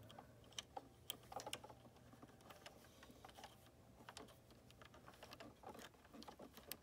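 Faint, irregular clicks and taps of small plastic and metal parts under the fingers as the sewing machine's thread-cutter blade holder is worked into its track and lined up with its pinholes.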